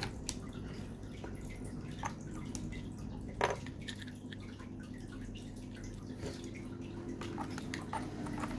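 Water trickling and dripping steadily over a low hum, with scattered light clicks of plastic aquarium-filter parts being handled and one louder knock about three and a half seconds in.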